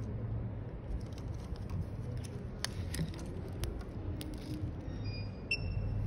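Hands handling a phone replacement screen and its flex-cable tester board on a rubber repair mat: a few light clicks and taps over a steady low hum, with a few short high beeps near the end.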